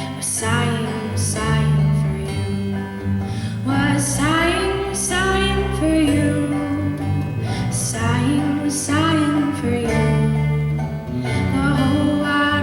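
Live acoustic folk song: voices singing a melody over strummed acoustic guitar.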